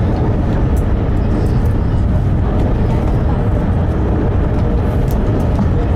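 Steady low rumble of a motor vehicle running, with a faint steady hum over it.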